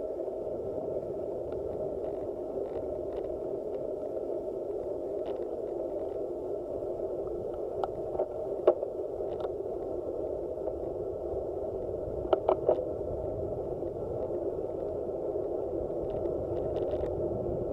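Steady rushing wind and tyre noise from a road bike riding fast, picked up muffled by a handlebar-mounted action camera. Sharp clicks and knocks cut through it: a loud one about nine seconds in and a quick run of three about twelve and a half seconds in.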